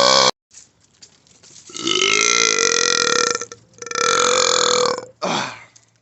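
A man burping loudly: one burp ending just after the start, then two long, drawn-out belches of about a second and a half each, and a short one near the end.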